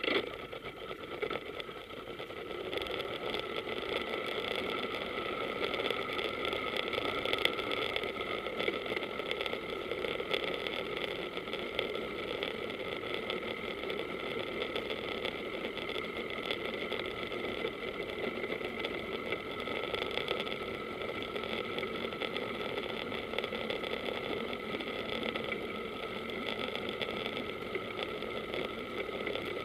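Powerboat engine running steadily at idle, a constant mid-pitched hum.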